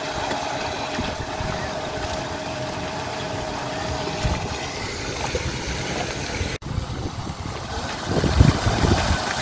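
An engine running steadily, with a faint steady hum that stops about halfway through. There is a sudden brief break about two-thirds of the way in, then low rumbling gusts near the end.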